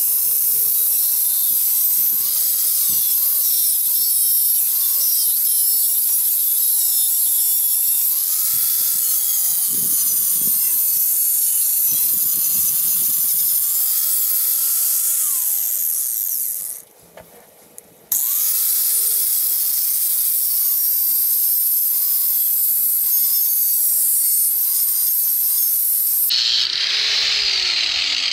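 Angle grinder running and biting into metal davit tubing, its motor whine dipping and rising as the load changes. It stops for about a second and a half past the middle, starts again, and turns to a heavier grinding near the end.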